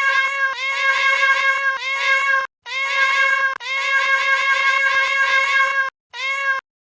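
Loud, high-pitched meow-like wail held at almost one pitch, broken into four pieces that start and stop abruptly, the longest about two seconds.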